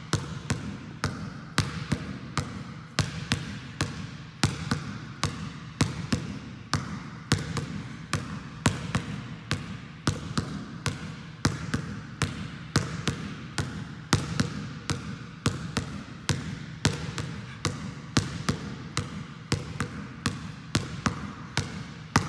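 A basketball dribbled in place on a gym floor, a steady run of sharp bounces at about three a second, in a repeating onside dribble, crossover, crossover pattern.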